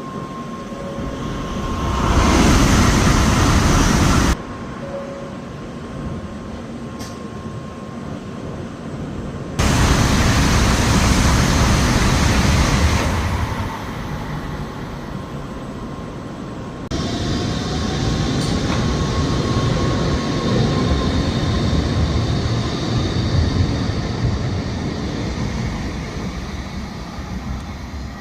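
N700S Shinkansen trains passing at speed: a loud, even rush of air and wheel noise that swells and fades. Several takes are spliced together with abrupt cuts.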